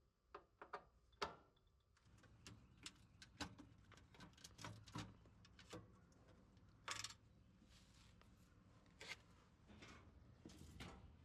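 Faint, scattered clicks and light knocks of hand tools and wires being handled while the old power cable's wires are taken off the ironworker's terminals; no motor sound, as the power is off.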